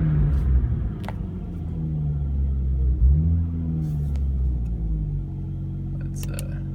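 Turbocharged car engine revved from idle: the revs fall away at the start, rise again in a second blip about three seconds in, and drop back to a steady idle. A click about a second in and a few light clicks near the end.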